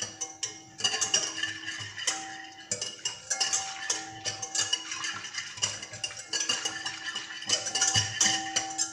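Wire whisk beating quickly against a glass bowl of yeast and warm water: fast clinking and rattling strokes, with the glass ringing at a few steady pitches between strokes.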